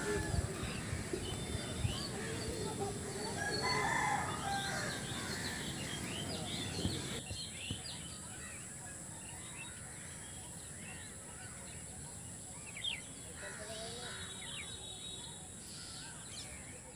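A rooster crowing once, about four seconds in, over small birds chirping. A few seconds later the busy background drops off suddenly, and sparser bird chirps go on over a quieter background.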